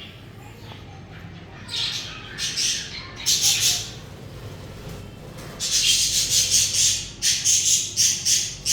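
Budgerigars chirping and squawking in short, harsh, high-pitched calls: a few brief calls about two seconds in, a pause, then a longer run of rapid calls through the second half.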